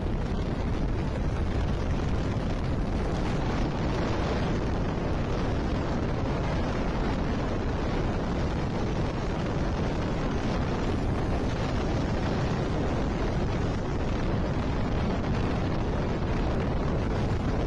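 Steady rushing wind and road noise of a car driving at speed on a wet motorway in heavy rain, with no thunder heard.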